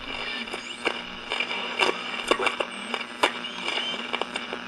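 Old-radio crackle and static: irregular sharp clicks and pops over a steady low hum and faint whine, like a vintage broadcast about to begin.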